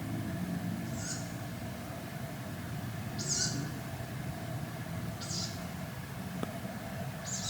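A lone bird giving the same short, high call over and over, about once every two seconds, four times, over a steady low background rumble. The camper takes it for a bird but is not certain.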